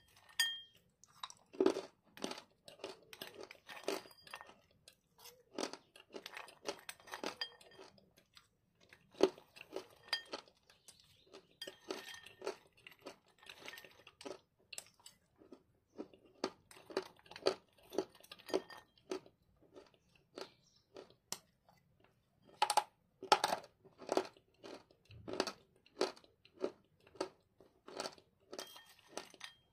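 A person chewing hard chunks of edible clay: a dense, irregular run of sharp crunches, loudest in a cluster about three quarters of the way through.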